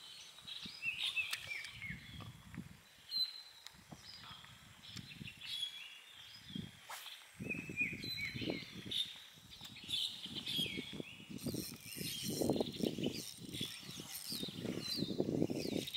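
Birds chirping and singing in many short, quick calls, over irregular low rumbling that comes and goes and is heavier in the second half.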